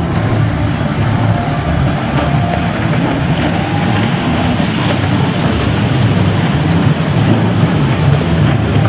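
Several stand-up racing jet skis running at speed through a turn, their engines droning over the rush of water and spray.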